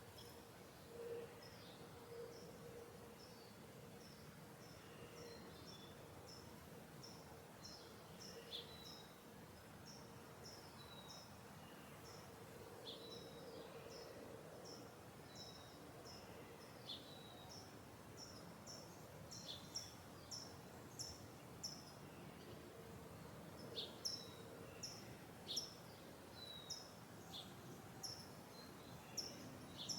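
Small garden birds chirping: short, high chirps and quick falling calls repeating, coming faster in the second half, over a faint steady low hum.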